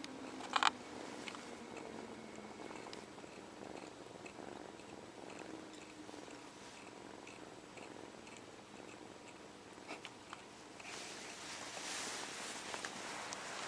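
Long-haired tabby kitten purring steadily while sucking on his paw. There is one short, sharp burst about half a second in, and a louder rustling, clicking noise from near the end.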